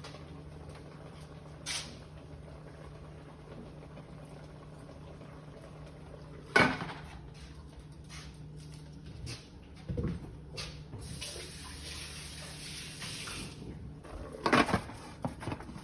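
Kitchen work sounds: a steady low hum, a few sharp knocks and clatters, the loudest about six and a half seconds in, and a couple of seconds of water running from a tap about two thirds of the way through.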